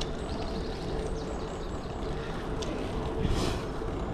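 Wind rushing over the microphone, with tyre and road noise from a bicycle ride, and a brief louder rush about three seconds in.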